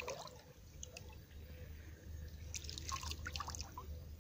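Light splashing and dripping of shallow water as hands work a fishing net down under the surface, with a cluster of small splashes about two and a half to three and a half seconds in.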